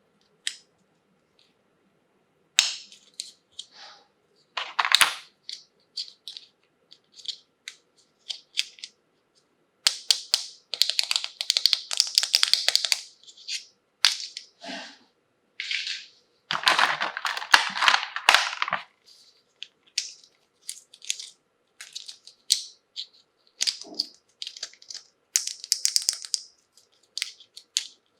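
Plastic toy packaging crinkling and small plastic toy pieces being handled, in irregular bursts with two longer stretches of dense crackling.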